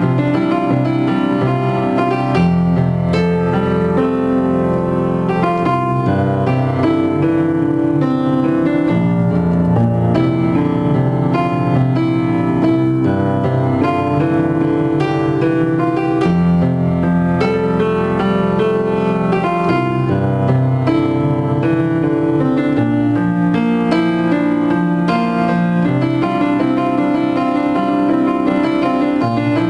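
Upright piano played with both hands: a continuous flowing piece of quick notes over held bass notes that change every second or two, at an even loudness.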